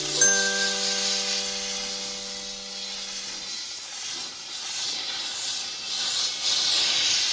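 Kärcher steam cleaner jetting steam: a steady hiss that grows louder again near the end. A held background-music chord sounds over it for the first few seconds.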